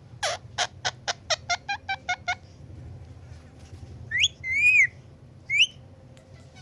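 Indian ringneck parrot calling: a quick run of about nine short calls that speed up, then about two seconds later three whistled notes, the middle one the longest.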